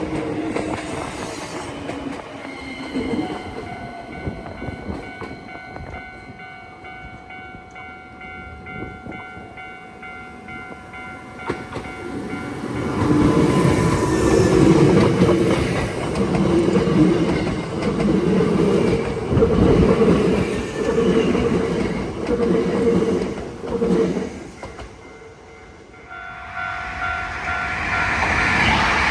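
Japanese level-crossing alarm bell ringing steadily while a Hankyu electric train passes, its wheels clattering over the rail joints in a loud stretch through the middle. The train's sound fades about two seconds before the end, leaving the bell ringing on its own.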